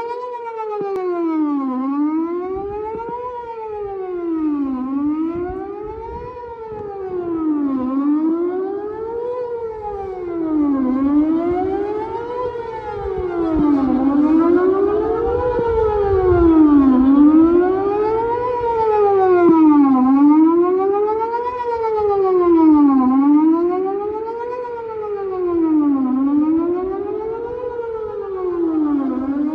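Whelen WPS 4008 electronic outdoor warning siren sounding its 'Best Possible Protection' tone for a scheduled test: one loud tone sweeping smoothly up and down in a repeating cycle of about three seconds.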